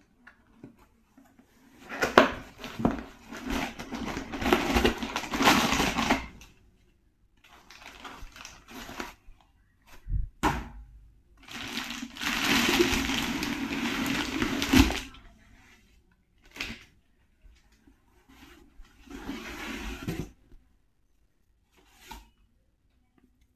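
Packaging being handled and unwrapped: spells of rustling and crinkling with knocks and clicks, the longest about two seconds in and again near the middle.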